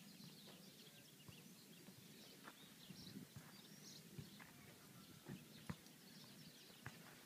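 Near silence: faint outdoor quiet with scattered distant bird chirps and a few soft clicks.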